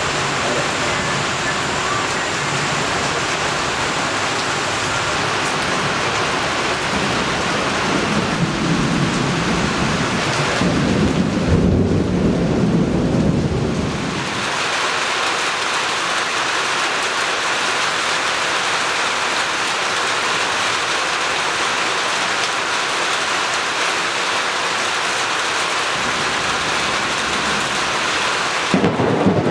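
Heavy rain pouring steadily, with a long roll of thunder building about eight seconds in and dying away around fourteen seconds. Another rumble of thunder starts just before the end.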